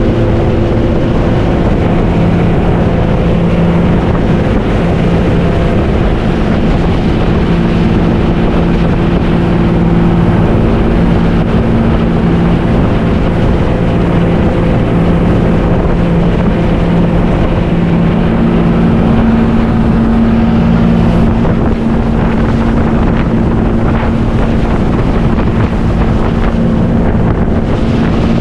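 Motorboat engine running steadily under way, with wind buffeting the microphone; the engine note shifts a little higher about two-thirds of the way through.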